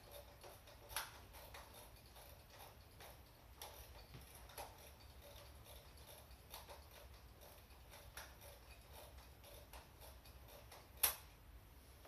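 Scattered light clicks and knocks of an airsoft M4 rifle and its grenade launcher being handled, with one sharper, louder click near the end.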